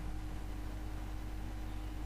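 Steady low electrical hum with hiss and a faint steady tone: background line noise on a video-conference audio feed.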